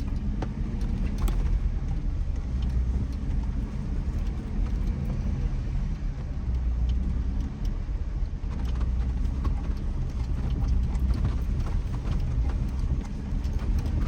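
2007 Jeep Wrangler JK driving, heard from inside the vehicle: a steady low rumble of engine and tyres with faint scattered clicks and rattles.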